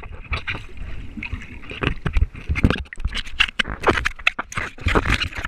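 Water sloshing and slapping against a GoPro's waterproof housing as it dips in and out of a river, with many irregular knocks and bumps on the case.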